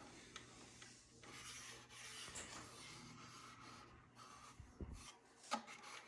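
Faint scraping and rubbing strokes of hand work on the plastic housing of a Nerf blaster, with one sharp click about five and a half seconds in.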